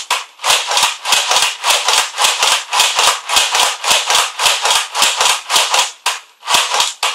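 Nerf Roughcut 2x4 blaster slam-fired in a rapid rhythm, about three strokes a second: the plastic pump slide rattles back and forth, each stroke ending in a sharp snap as the spring-loaded plungers release. It is running on a 3D-printed ABS replacement gear and stretched stock springs. There is a brief pause near the end before the pumping resumes.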